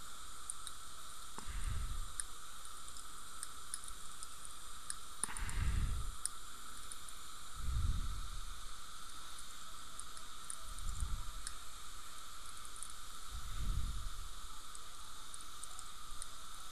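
Steady background hiss with a faint high whine, overlaid by soft, low puffs of breath against the microphone about every two to three seconds.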